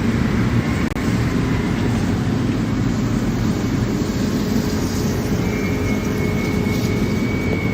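500-ton hydraulic copper scrap baler running: a loud, steady mechanical din, with a faint high whine joining about two-thirds of the way through.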